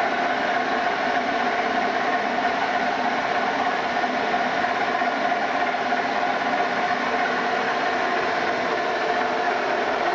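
Milltronics Partner VI CNC vertical machining center running, its CT40 spindle turning at about 1750 RPM with a steady whine of several tones over a mechanical hum.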